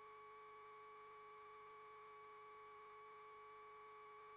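Near silence, with only a faint steady electrical hum at one pitch and its overtones.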